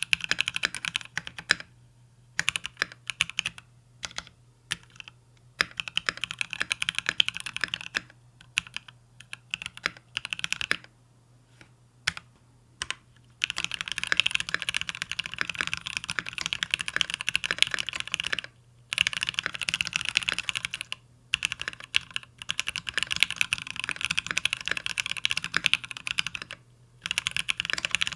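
Typing on a mechanical keyboard with lubed Durock L4 tactile switches and PBT XDA-profile keycaps, a polycarbonate-cased XO K80. The first half is scattered keystrokes and short bursts with gaps between them. About halfway in it becomes fast, continuous typing, broken only by a few brief pauses.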